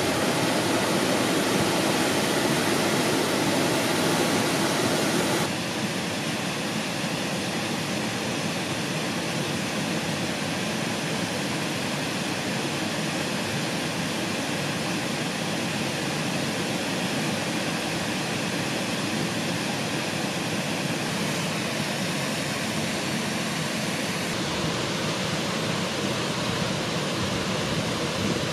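Steady rushing of flowing water, a stream or waterfall, with a slight drop in level about five and a half seconds in.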